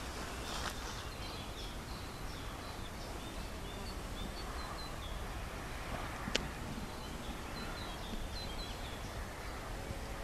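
Small songbirds chirping and singing, short high calls repeating one after another, over steady low background noise. A single sharp click comes about six seconds in.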